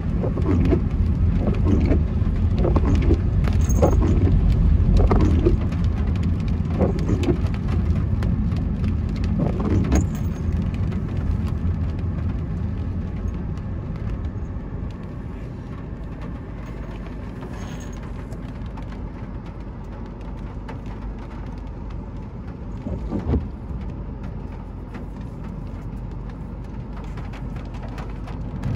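Car driving in heavy rain: steady engine and road rumble with rain spattering and tapping on the car. It is loudest for the first ten seconds or so, then settles quieter.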